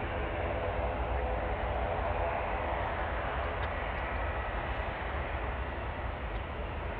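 Jet engines of a Boeing 787-10 taxiing, heard from across the airfield as a steady rumble and hiss with a faint whine.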